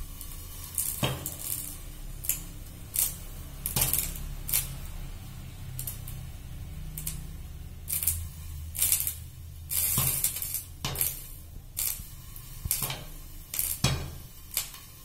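Popcorn popping in a pan under a glass lid: sharp, irregular pops and taps against the lid, about one a second with some quick clusters, as the last kernels pop. A low steady hum runs underneath.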